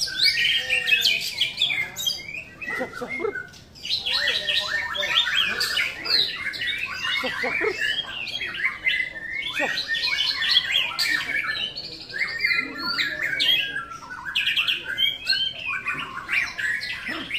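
Several white-rumped shamas (murai batu) singing at once: a dense, overlapping stream of rapid whistles, trills and chirps with no break.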